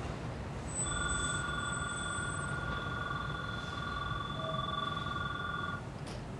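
Electric station platform bell ringing steadily for about five seconds, starting about a second in and stopping abruptly, over a low background rumble.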